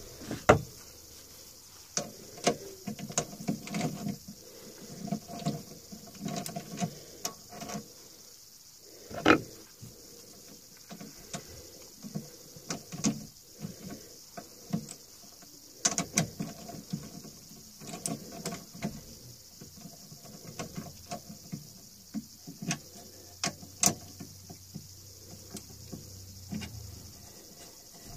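Scattered knocks, clicks and rattles as a wooden bowl blank and a metal chuck key are handled at a stopped wood lathe, with the key turning the scroll chuck's jaws. A few knocks are much louder than the rest.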